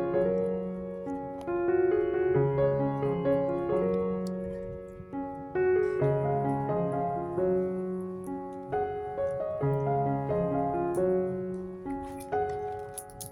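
Background piano music: a gentle melody of held notes over low chords.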